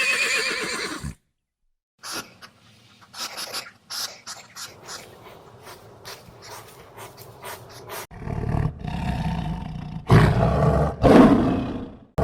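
A horse's whinny cut off about a second in, then after a short gap scattered clicks and faint sounds, then a lion roaring, with two loud roars near the end.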